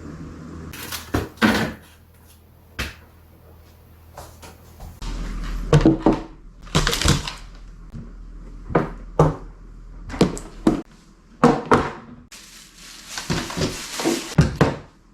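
Household handling sounds: irregular knocks and clatters of objects being picked up and set down, over a low steady hum.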